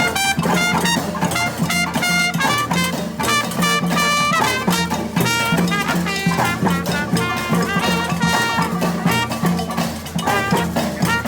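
Brass band playing live: horns play short, rhythmic notes over a held low bass note.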